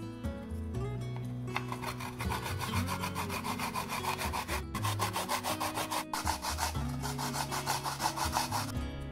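Daikon radish being grated on a plastic grater: rapid back-and-forth rasping strokes that start about a second and a half in, pause briefly twice, and stop near the end.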